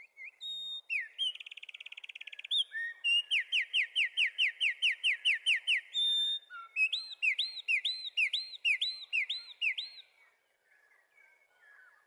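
A wren singing: a fast buzzy trill, then a run of about a dozen quick down-slurred notes, then a slower series of looping whistled notes. The song stops about ten seconds in, leaving only faint chirps.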